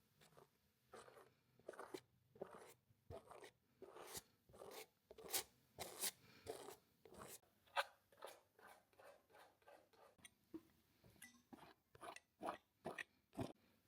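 Quiet, short scratchy strokes against canvas, irregular at about two or three a second, as the first marks of a new painting are laid down.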